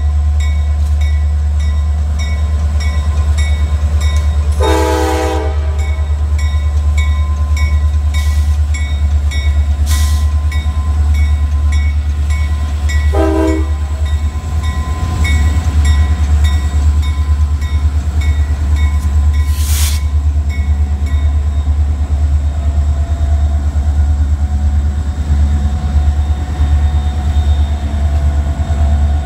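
CSX diesel freight locomotives passing close, engines rumbling steadily, with the air horn sounded twice: a blast of about a second early on and a shorter one about thirteen seconds in. A grade-crossing warning bell rings steadily underneath.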